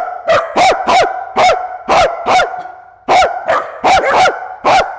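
A dog barking rapidly and excitedly, about a dozen sharp barks with a short pause about halfway through.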